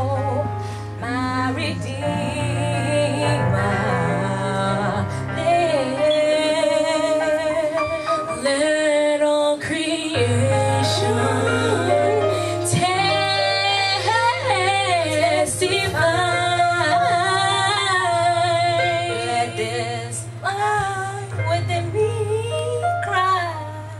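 Church praise-and-worship singing: female voices sing a melody with vibrato over instrumental backing with a held bass note.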